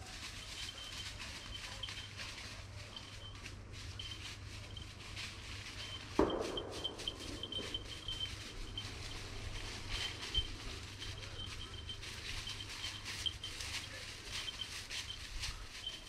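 Rustling and crackling of brush and dry undergrowth as people move through woodland cover, with a louder swish of branches about six seconds in. A faint high ringing comes and goes throughout.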